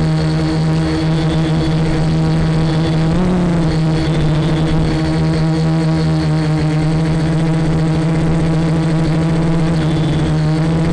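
Quadcopter's electric motors and propellers humming steadily in flight, the pitch rising briefly about three seconds in as the throttle changes.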